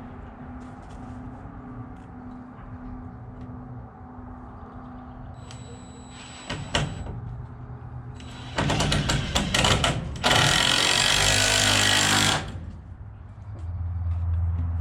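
A power drill-driver running in two loud bursts about two thirds of the way in, first with a rapid pulsing, then steadily for about two seconds. Before that there are faint clicks and handling knocks over a low hum.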